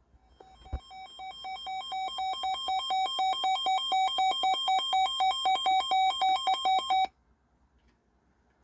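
Electronic alert tone warbling rapidly back and forth between two pitches, growing louder over its first few seconds, then cutting off abruptly about seven seconds in. A short click comes just under a second in.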